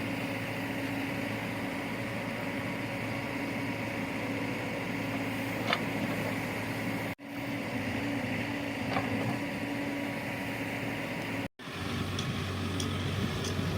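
Diesel engine of a heavy construction machine running steadily with a low, even hum. The sound drops out abruptly twice, about 7 and 11.5 seconds in, where the footage is cut.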